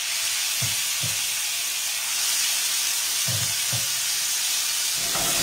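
Chopped eggplant flesh frying in a pan of hot oil and garlic, giving a loud, steady sizzle just after it goes in, with four soft low thuds.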